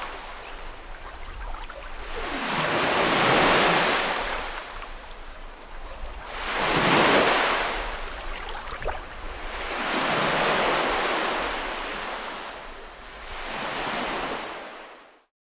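Small sea waves washing onto a beach, four surges about three and a half seconds apart, each swelling and falling away. The sound cuts off abruptly near the end.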